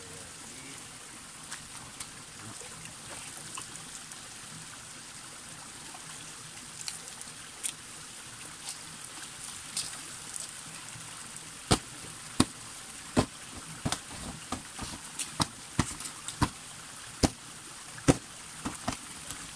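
Spring water trickling steadily down a mossy rock face, with a run of short, sharp splashes and clicks from about seven seconds in, thickest and loudest in the second half, as water is scooped and splashed by hand.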